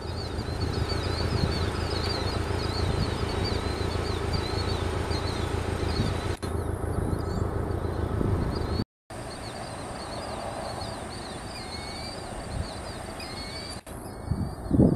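Boeing 737 freighter's jet engines running at taxi power, a steady low rumble, with small birds chirping fast and high over it. About nine seconds in the rumble drops away at a cut, leaving the birds over a faint hum, and wind starts buffeting the microphone near the end.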